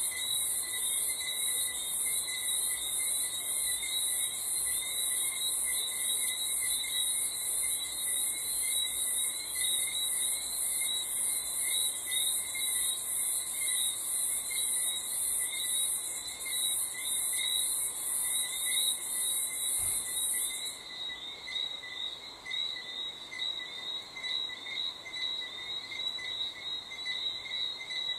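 Night chorus of crickets: a loud, high, rapidly pulsing trill that cuts off suddenly about twenty seconds in, over a lower pulsing chirping that keeps going.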